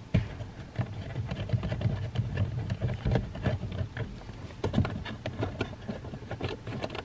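Irregular small clicks and light knocks of hands working at a plastic lower dashboard panel, taking out loosened T20 Torx screws, over a steady low hum.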